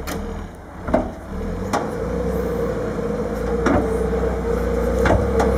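Wheel loader's diesel engine working under load as the machine scrapes soil along a trench; the engine revs up about a second and a half in and holds a steady loud note, with several sharp knocks from the machine along the way.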